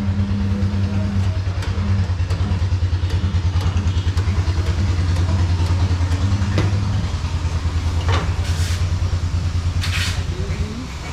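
Air compressor or tyre-changing machinery running with a steady, rapidly pulsing hum, with scattered metal clicks and two short blasts of air hiss near the end.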